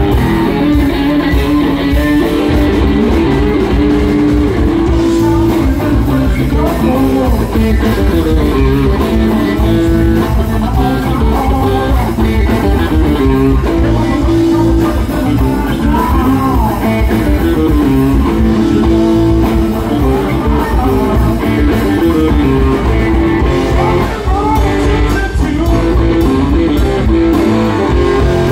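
Live blues band playing a slow blues: electric guitar leading over bass guitar and drums, loud and continuous.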